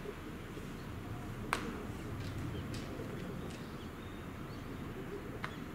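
Steady low outdoor rumble, with a sharp pop about a second and a half in, a few fainter ticks, and another pop near the end: baseballs smacking into leather gloves during catch practice.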